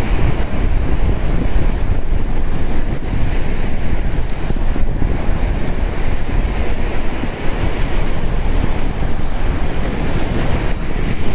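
Strong wind buffeting the microphone: a loud, continuous rush of noise with a heavy, fluttering low rumble.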